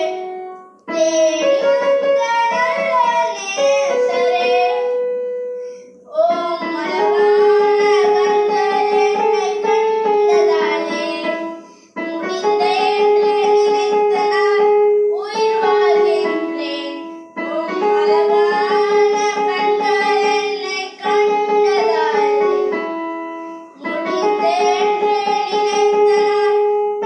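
A boy singing to his own electronic keyboard accompaniment, in phrases of a few seconds with short breaks between them.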